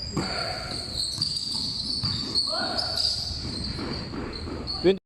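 Basketball game ambience: a steady high cricket trill over faint distant voices and a few soft bounces of a basketball, cutting off abruptly at the end.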